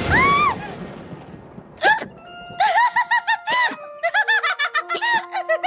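A cartoon pony's voice laughing hard in quick repeated ha-ha bursts from about two seconds in, after a short rising-and-falling cry at the start over the fading tail of a crash noise. A few held music notes step down in pitch behind the laughter.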